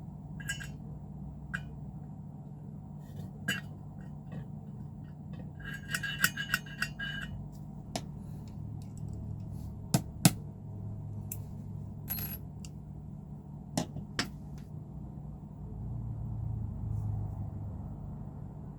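Small metal clicks and clinks of rivets and a hand riveter being handled, with a quick run of clicks about six seconds in and a few sharper knocks near the middle, over a steady low hum.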